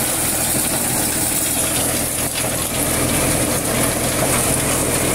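Tractor-powered corn thresher running steadily under the tractor's engine drone, as ears of corn are fed into its hopper and threshed.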